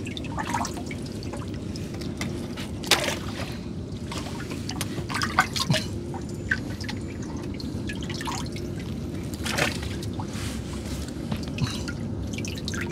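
Water dripping and splashing as a wet fishing net is hauled aboard a small river boat, with scattered short knocks and splashes over a steady low hum.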